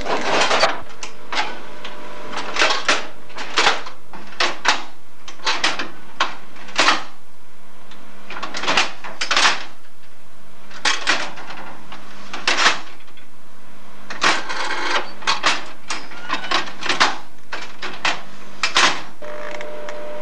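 A run of irregular sharp clunks and clicks, one or two a second and some in quick pairs, over a steady faint hum.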